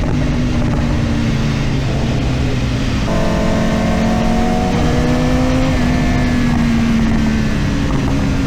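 BMW S1000RR inline-four engine running under way, its note changing about three seconds in and then climbing slowly in pitch as it pulls.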